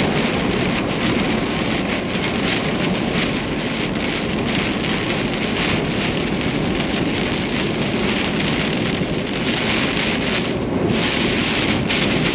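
Heavy rain pelting a truck during a storm, a dense steady hiss of rain and road noise.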